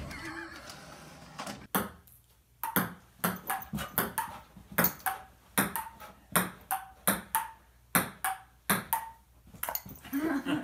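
Repeated light taps on a hard surface begin about two seconds in, about two to three a second, each with a short ringing ping.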